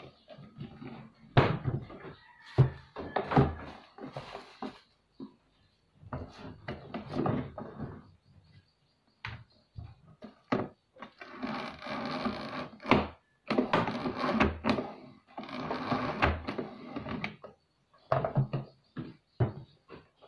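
Plastic parts of a flat-mop bucket knocking and clicking as they are handled and fitted together. About halfway in, the mop's microfibre pad scrapes through the bucket's wringer slot in about three long strokes.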